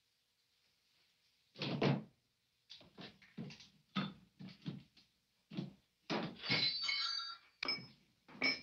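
A person hurriedly gathering clothes and objects from a dresser and cupboard: a string of knocks, thuds and rustles starting about a second and a half in, with a few short ringing clinks near the end.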